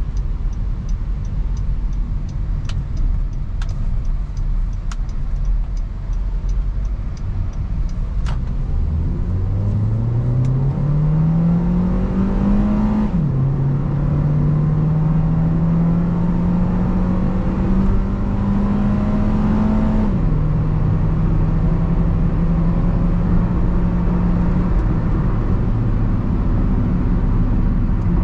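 Honda Civic's 1.8-litre i-VTEC four-cylinder engine accelerating, with road noise. Its note climbs, drops suddenly as the Prosmatec automatic gearbox upshifts, climbs slowly again, drops with a second upshift, then holds steady. A few sharp clicks and a faint regular ticking come before the engine note rises.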